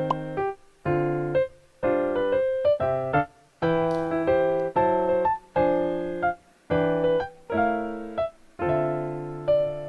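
Background music: a light, bouncy electric piano tune playing chords about once or twice a second.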